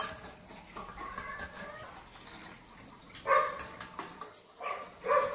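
A domestic animal making short, pitched calls several times, loudest about three seconds in and again near the end, with faint clicks between.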